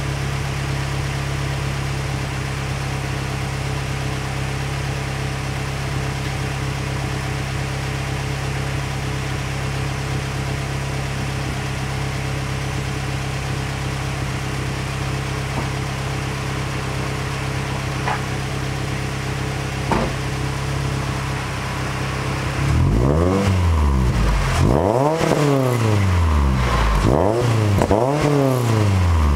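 Mazda MX-5's four-cylinder engine idling steadily through a Goodwin Racing Street Single aftermarket exhaust with header and midpipe. About three quarters of the way in it is revved in several quick blips, the pitch rising and falling each time and the sound getting louder.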